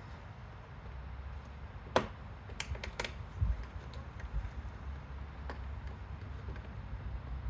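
Sharp clicks and taps of plastic door-panel trim being handled and worked loose: one sharp click about two seconds in, a quick run of three clicks just after, a dull knock, and another click later.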